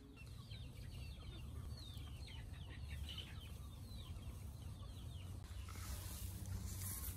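Chickens calling: many quick, short, falling chirps like chicks peeping, over a low steady rumble. A hiss rises near the end.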